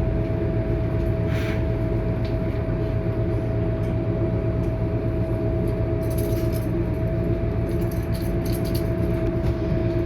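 Scania K230UB single-deck bus heard from inside while under way: its engine drones steadily under a constant transmission whine, with interior panels and fittings rattling, busier from about six seconds in.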